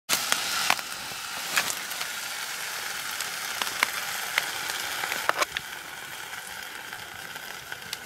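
Steady sizzling hiss from a pot over an open wood fire, with scattered sharp crackles and pops from the burning wood.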